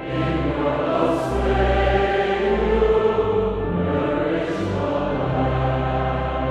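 A choir singing with long, low held notes underneath.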